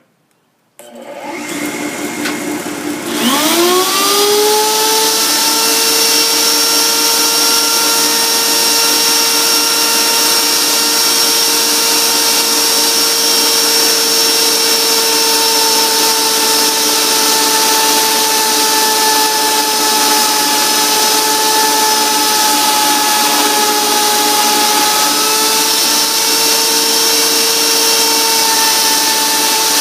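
A small high-speed power tool, the die grinder with a router bit used on this homemade lathe, spins up about three seconds in, its whine rising quickly and then holding steady while it cuts the turning Corian, over the run of the lathe's motor.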